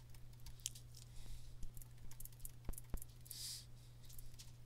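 Typing on a computer keyboard: light, irregular key clicks over a faint steady low hum, with a brief soft hiss about three and a half seconds in.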